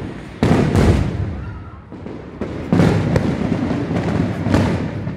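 Aerial fireworks going off: four sudden bangs, the loudest about half a second in, two close together near the middle and one more near the end, each trailing off in a low rumble.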